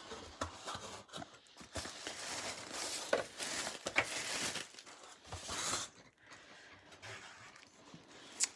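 Tissue paper and a clear plastic sleeve rustling and crinkling as hands unwrap a package, with small clicks and crackles; the crinkling is strongest through the middle and dies down near the end.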